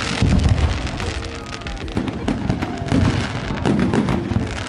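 Fireworks going off in quick succession: deep booms from shell bursts mixed with dense crackling. The loudest burst comes right at the start, with further heavy booms about three and four seconds in.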